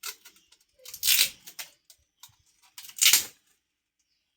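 Three short rasping rustles with a few small clicks between them, the sound of something being handled or dragged.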